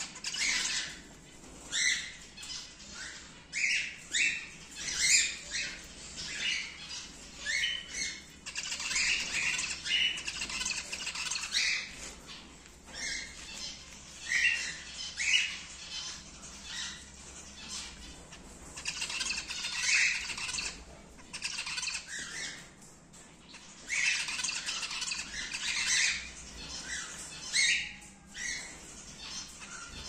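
A colony of cockatiels calling: many short chirps and squawks, bunched into bouts of a few seconds with brief lulls between.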